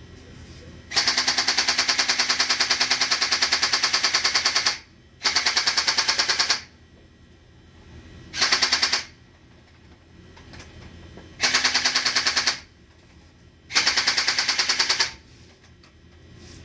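Electric gel blaster Glock firing on full auto in five bursts, a fast, even rattle of shots; the first burst runs about four seconds, the others one to one and a half seconds each.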